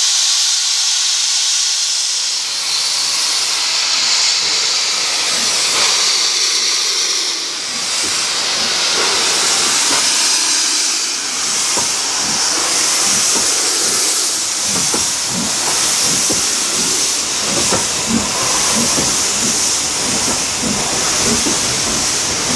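Somerset & Dorset 7F 2-8-0 steam locomotive pulling away with its cylinder drain cocks open, a loud, steady hiss of steam. From about eight seconds in, a rhythm of chuffs and wheel knocks comes through beneath the hiss as the engine and its coaches roll past.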